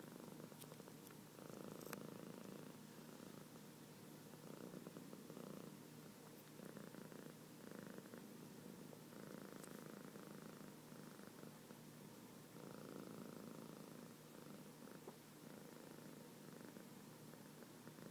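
Domestic cat purring quietly and continuously, the purr swelling and easing with each breath. A few brief sharp clicks are scattered through it.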